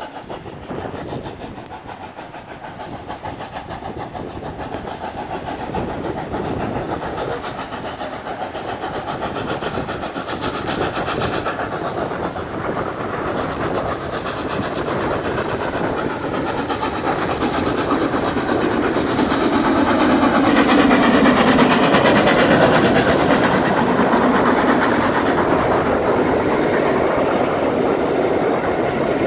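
Steam locomotive 46100 Royal Scot, a three-cylinder 4-6-0, hauling a passenger train past at speed. Its exhaust beats and running noise grow steadily louder as it approaches and are loudest about two-thirds of the way through as the engine goes by. After that the coaches' wheels run past on the rails.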